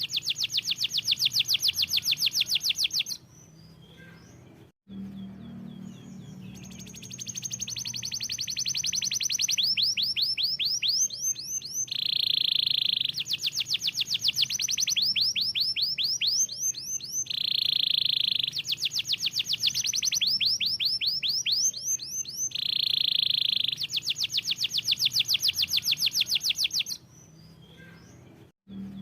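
Canary singing: fast trills of rapid repeated high notes alternating with a held whistled note, the phrases repeating every few seconds with two short pauses.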